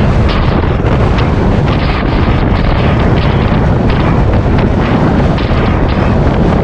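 Heavy wind buffeting the microphone of a camera carried on a moving bicycle, a steady loud rumble with frequent short ticks and knocks mixed in.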